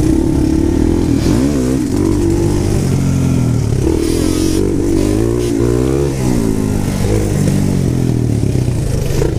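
Sport ATV engine running at speed, its pitch rising and falling several times as it is revved up and eased off.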